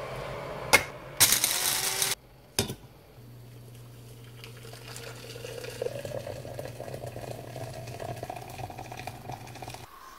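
Electric blade coffee grinder switched on and running on whole beans for about a second, followed by the steady low hum and soft, slowly rising hiss of an electric kettle heating water toward the boil.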